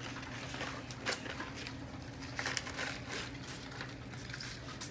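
Two dogs eating from a shared metal pan: irregular wet smacks and clicks of chewing and licking, with the pan clinking, loudest about a second in and again around two and a half seconds in.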